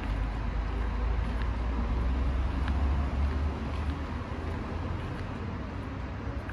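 Low outdoor rumble over a steady background hiss, swelling about two to three seconds in and then easing off.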